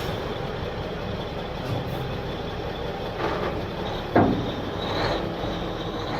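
A machine running steadily, with a short squeal that falls in pitch about four seconds in.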